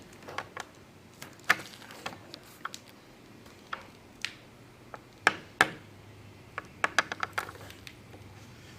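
Small sharp clicks and taps of a thin plastic spudger on a Galaxy S5's frame and glass as it is pushed along the edge to part the screen from the frame. The clicks are scattered, the loudest two a little past the middle and a quick run of them about seven seconds in.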